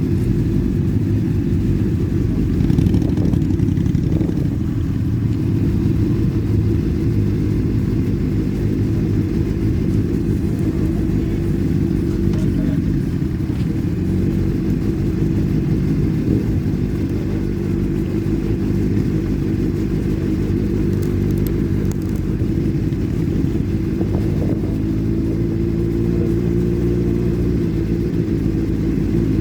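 Many motorcycle engines from a mass convoy rumbling together steadily. Several engine notes overlap, and one holds a steady pitch near the end.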